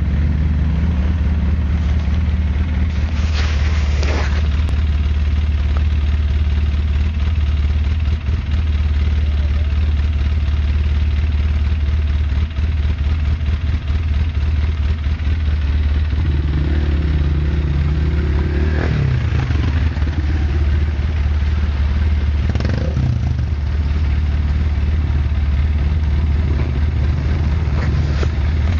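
Off-road vehicle engines running close up as a loud, steady low drone, the engine note wavering for a few seconds about two-thirds of the way in. A few short rattles break through.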